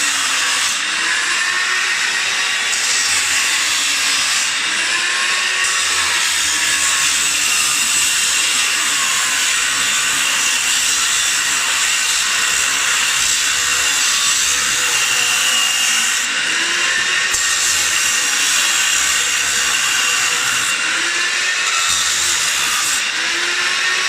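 Power tool, most likely an angle grinder, running continuously under load against metal. Its pitch repeatedly sags and recovers every couple of seconds as the disc bites, over a steady high whine.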